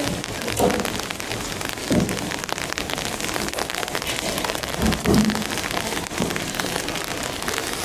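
Steady rain falling, a dense patter of drops. A few short, low voice-like sounds rise above it about half a second, two seconds and five seconds in.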